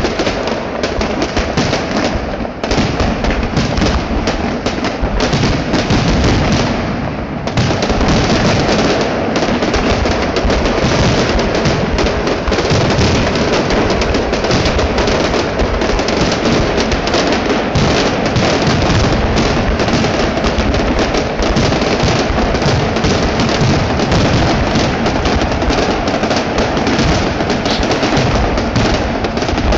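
Fireworks finale heard from close beneath: a dense, continuous barrage of shell bursts and crackling, with a brief lull about seven seconds in.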